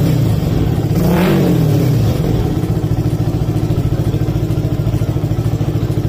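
Yamaha R15 V3's single-cylinder engine through an aftermarket Daytona full-system exhaust, throaty: a quick rev blip rising and falling about a second in, then settling to a steady idle with an even pulsing beat.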